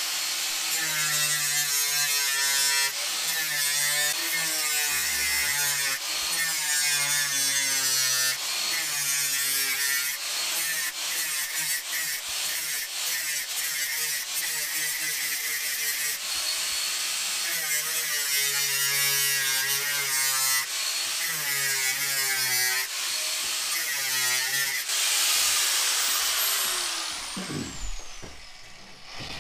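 Makita angle grinder with a grinding disc cutting along the thin sheet-metal casing of an old electric oven; the motor's pitch dips and recovers again and again as the disc bites. Near the end it is switched off and winds down with a falling whine.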